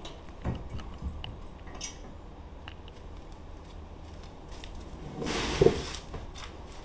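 A large wood-grain-faced board being set against a vertical panel saw's frame: a few light knocks, then a short sliding rush ending in one sharp knock near the end.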